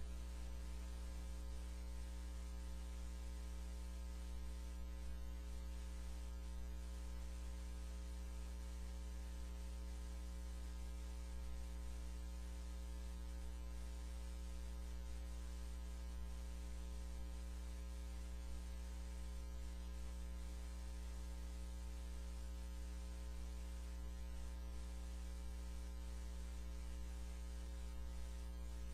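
Steady electrical mains hum: a low drone with a row of fainter higher tones, over a faint hiss.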